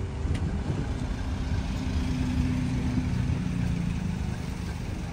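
A vehicle's engine running with a steady low rumble and hum.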